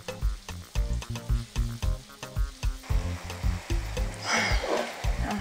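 Tomato-pepper sauce sizzling in hot oil in a frying pan as a wooden spoon stirs it, over background music with a steady beat. The sizzle comes up strongly past the middle, with a loud burst of frying and stirring noise about four seconds in.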